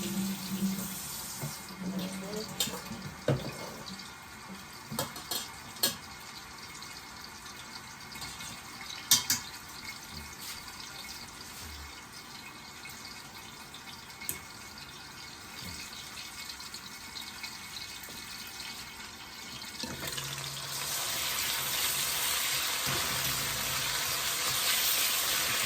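A few sharp clinks and knocks over a faint steady hiss, then, about twenty seconds in, chicken gizzards start sizzling in a hot pot, a louder even hiss that keeps going.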